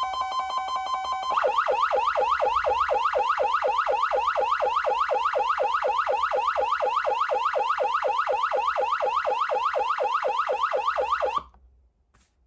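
Code 3 H2 Covert electronic siren amplifier sounding through its speaker. It starts with a fast alternation between two pitches, then about a second in it switches to a yelp: a rapid rising sweep repeated about five times a second. The yelp cuts off suddenly about a second before the end.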